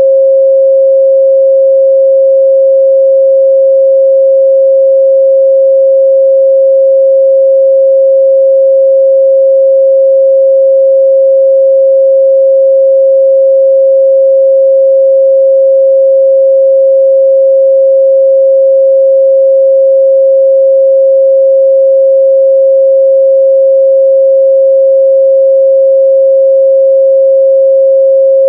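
Steady pure 538 Hz sine-wave test tone, one unwavering midrange pitch with no overtones, held at constant loudness.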